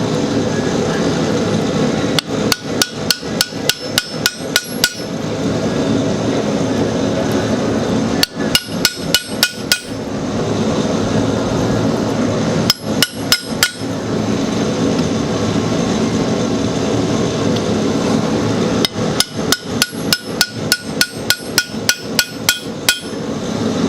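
Hand hammer striking a long hot chisel to cut a groove line into hot square steel bar on the anvil: four runs of quick blows, about three to four a second, each with a bright metallic ring. A steady rushing noise runs underneath.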